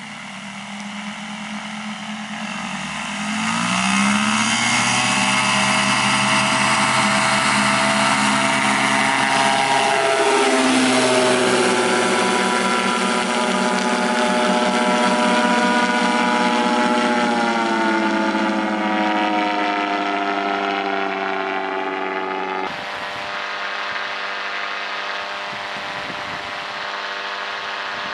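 The Yamaha Phazer 80 hp four-stroke twin engine of a Kolb Firestar 2 ultralight runs up to full power for a takeoff, rising in pitch and loudness about three seconds in, then holding a steady drone. Its pitch drops around ten seconds in and again shortly before eighteen seconds. Near the end the sound switches abruptly to a steadier engine drone as heard on board.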